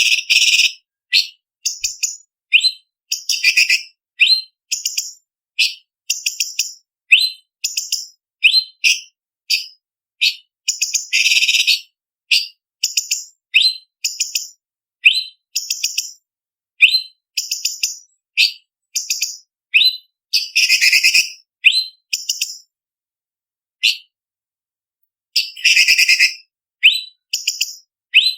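Orange-bellied leafbird (cucak cungkok) singing: a string of short, sharp, high-pitched whistled phrases separated by brief silences. Several longer, rapid chattering trills break in, near the start, about eleven seconds in, and around twenty and twenty-six seconds in.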